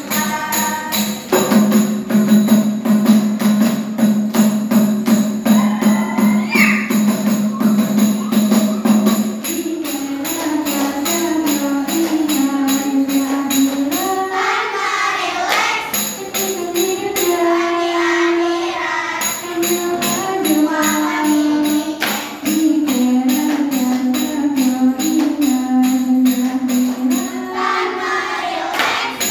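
Saman dance: many hands clapping together in a fast, even rhythm under a sung melody that holds one low note for about the first nine seconds, then moves up and down in steps.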